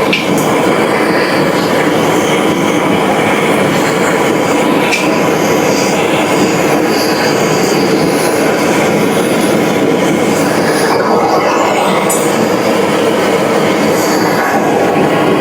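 Steady, loud machine noise with faint high metallic squealing over it, unbroken throughout.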